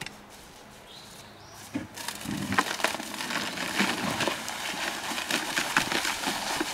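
Paper sack of dry concrete mix crackling and rustling as it is lifted and tipped, with the powdery mix pouring into a plastic bucket. It starts about two seconds in, after a quieter moment.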